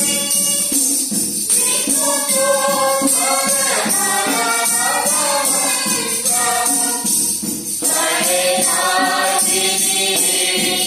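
A group singing a gospel hymn together, led by a man's voice at a microphone, with a tambourine shaking in time.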